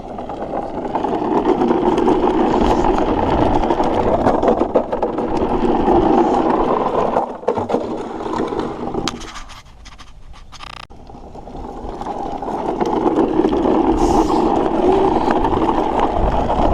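Toy truck's wheels rolling and rattling fast down a hill, a steady scraping rumble that dies down about halfway through and then builds up again.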